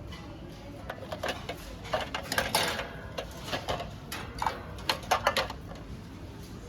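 Kitchen utensils being handled, making a run of clinks and clatters that is busiest from about two to five and a half seconds in.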